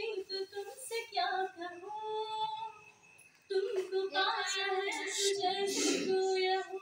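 A woman singing solo without accompaniment, holding long steady notes, with a short break about three seconds in.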